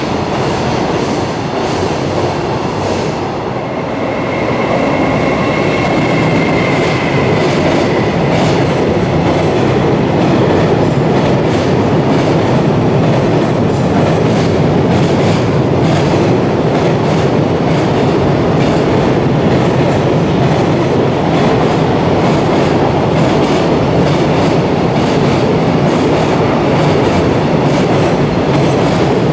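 Long container freight train running past on elevated track, a steady rumble with the wheels clattering over the rail joints. A high wheel squeal rises out of it about four seconds in and fades over a few seconds.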